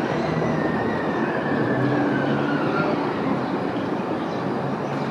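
R160 subway train running on the elevated structure, with steady wheel and track noise and a motor whine that falls in pitch over the first three seconds.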